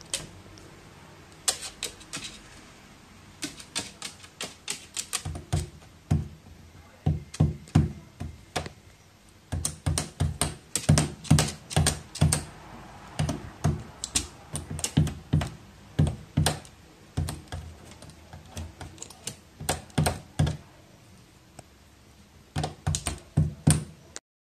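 Pet crow tapping and knocking on a hard floor: quick, irregular clicks with dull thuds, often several a second, thinning out near the end.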